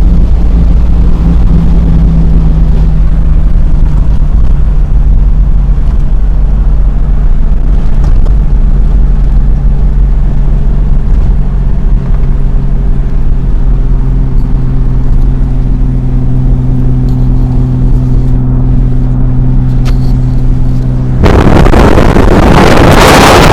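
Car driving at speed: loud, steady road and wind rumble with a low engine hum that eases down slightly and then holds steady. Near the end a loud rush of wind noise cuts in suddenly.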